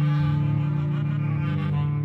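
Background music: slow bowed strings, cello and double bass holding long notes.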